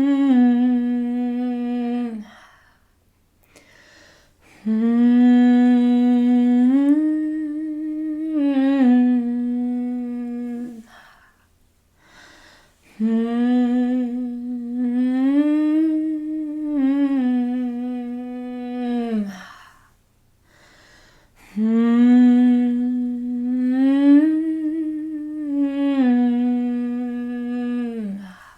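A woman humming a slow, improvised wordless melody as a sound for grief. It comes in long phrases of about six seconds each, with short pauses between them. Each phrase holds a low note, rises a step and falls back.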